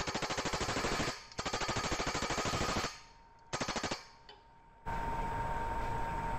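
A cutting tool chattering against the edge of an aluminum disc spinning on a wood lathe as the disc is trimmed round. It gives a rapid, even rattle in three bursts, the last one short. Then, from about five seconds in, a steady hiss with a thin whine.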